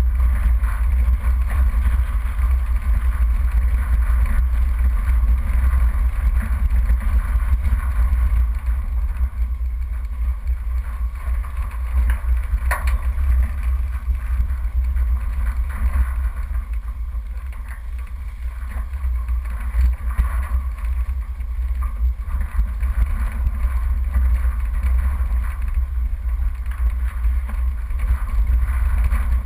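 Four-wheel-drive vehicle driving along a rough dirt track, heard as a steady low rumble of engine, tyres and body vibration. There is a single sharp knock about 13 seconds in.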